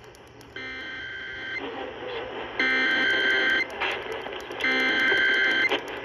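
Emergency Alert System SAME header: three screeching digital data bursts of about a second each, a second apart, played over AM radio through a small radio's speaker.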